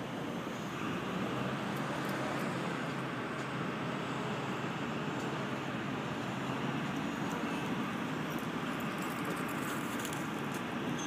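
Steady road traffic noise, a constant rumble and hiss.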